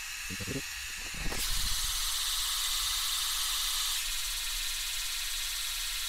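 Pink noise test signal playing through a car's right tweeter for a moving-mic measurement: a steady hiss, almost all of it in the treble. It comes up to full level about a second and a half in.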